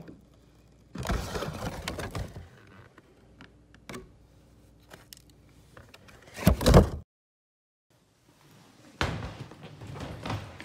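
Handling noises: knocks and rustles in several bursts, the loudest about six and a half seconds in, followed by a second of silence and then another burst.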